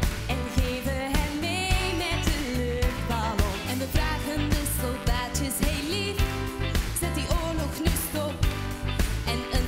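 Young women's voices singing a Dutch pop song, one lead voice at a time, over a band with a steady drum beat.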